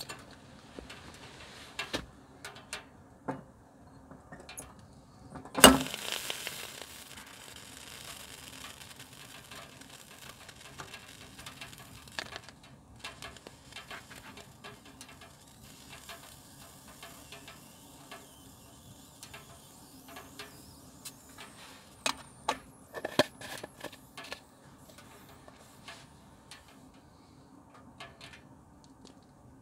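Scattered clicks and knocks of objects being handled. One loud clank comes about six seconds in, followed by a hiss that fades over several seconds, and a short run of clatter comes about twenty-two seconds in.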